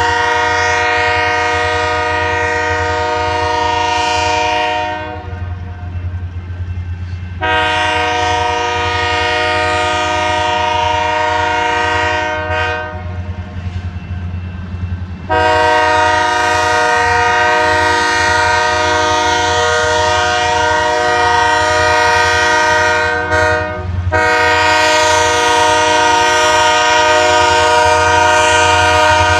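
Union Pacific diesel locomotive's multi-chime air horn sounding four long blasts as the train approaches. The last two blasts are nearly joined and the last is still sounding at the end, over a steady low locomotive rumble.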